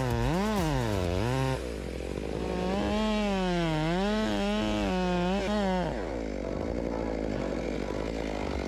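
Chainsaw engine revving up and down as it cuts, its pitch rising and falling quickly. The engine note breaks off about a second and a half in and returns, then gives way near six seconds to a rough, unpitched rattling noise.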